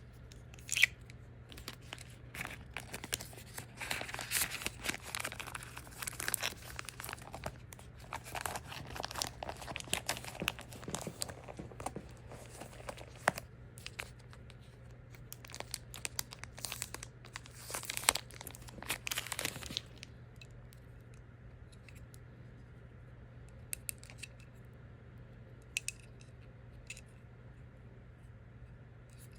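Packaging being handled and unwrapped: dense crinkling, rustling and tearing with sharp clicks for about twenty seconds, then only a few scattered clicks.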